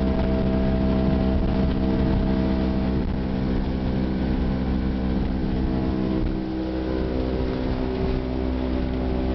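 Small motorboat's outboard motor running steadily at cruising speed, with a rushing hiss of water and wind. The engine note dips briefly about six and a half seconds in, then steadies.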